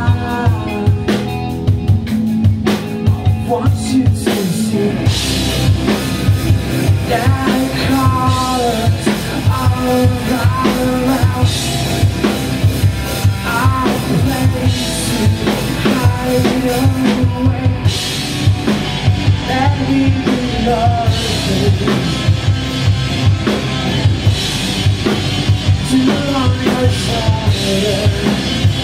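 Live band playing: a drum kit keeps a steady beat under a bending melodic line.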